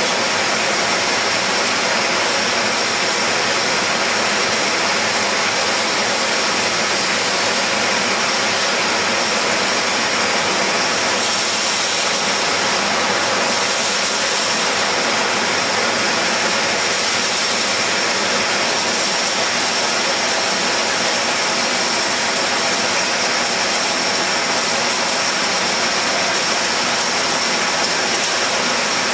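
Rotary bottle filler on a 36,000-bottle-per-hour Coca-Cola glass-bottle line running: a loud, steady hiss and mechanical din with a constant high whine over it.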